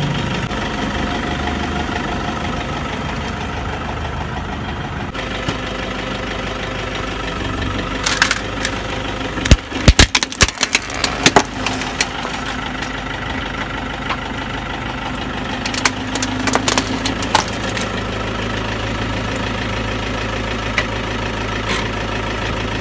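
Car engine idling steadily while its tyre rolls over and crushes wristwatches and a plastic toy figure on paving, with sharp cracking and crunching in clusters: a short one about a third of the way in, the loudest around ten seconds in, and another burst of crackling about two-thirds of the way through.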